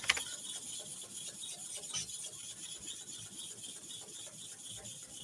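Starex clipper blade rubbed back and forth across a sharpening stone: a steady, gritty scraping, with a faint click about two seconds in.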